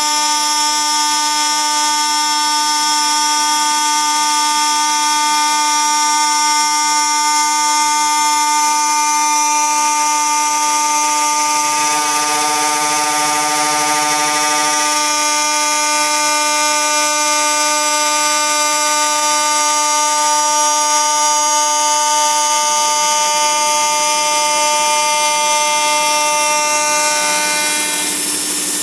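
High-speed spindle of a CNC glass slotting and milling machine running with a steady high-pitched whine; the whine cuts off near the end.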